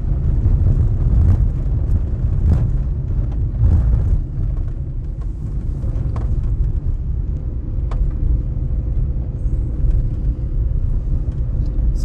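Car driving on a gravel road: a steady low rumble of tyres on gravel, with a few scattered sharp ticks.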